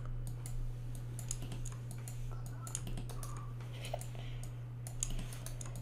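Scattered light clicks of a computer mouse and keyboard being worked, over a steady low hum.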